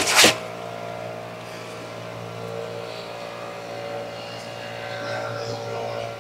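Brief scrape of handling as the pistol comes up out of its packing, then a steady engine-like drone with a few even pitches, swelling slightly about five seconds in.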